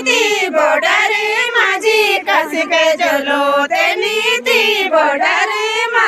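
Women singing a Garhwali jhumailo folk song, high voices in ornamented phrases about a second long, close to the microphone.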